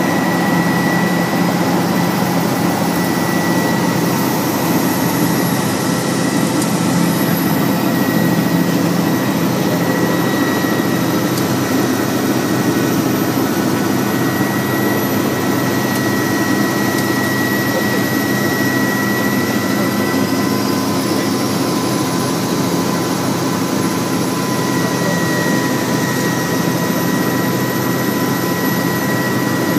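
Helicopter engine and rotor noise heard from inside the cabin in flight: a steady, loud drone with a thin, high whine held over it.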